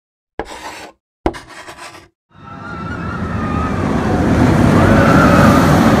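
Intro sound effects: two short sharp hits about a second apart, then a rumbling rush with a faint wavering whine that swells steadily over several seconds.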